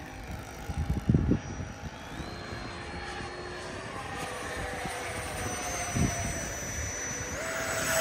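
Freewing F-14 radio-controlled jet's twin electric ducted fans whining overhead, the pitch stepping up a few times and the sound growing louder toward the end. Two brief low thuds, about a second in and near six seconds.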